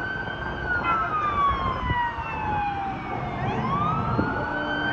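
Police car siren wailing: its pitch falls slowly over about three seconds, then rises again and holds high near the end, over a low rumble of street traffic.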